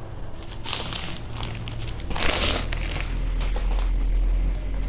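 Plastic courier pouch crinkling and rustling as it is handled and a chopping board is taken out, in several short bursts, the loudest about two seconds in.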